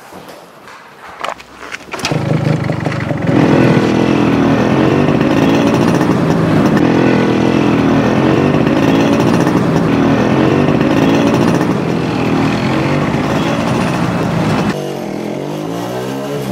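Yamaha RX100 two-stroke motorcycle engine running hard under throttle, its pitch rising and falling. It starts about two seconds in, and near the end it drops to a quieter, wavering note.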